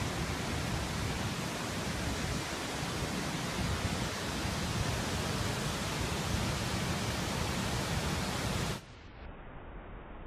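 Bản Giốc Waterfall's falling water, a steady full rushing noise. It cuts off abruptly near the end, leaving a much quieter hiss.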